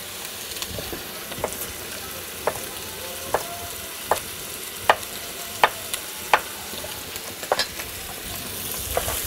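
Chef's knife chopping carrot and onion on a wooden cutting board: about ten sharp knocks, roughly one a second. Under them is a steady sizzle of lamb pieces browning in very hot butter in a pot.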